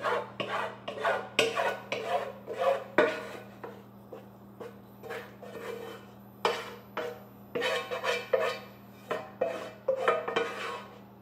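A utensil scraping ground-meat filling out of a frying pan in repeated short strokes, about two a second, with a quieter pause in the middle before the scraping starts again.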